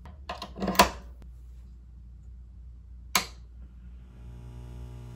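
Several sharp clicks from the toggle switch on a tweed Fender 5E3 Deluxe tube amp. About three seconds in, a single sharp pop as a guitar cable is plugged into the amp's input jack. From about four seconds in, a steady buzzing hum with many overtones comes up through the amp's speaker.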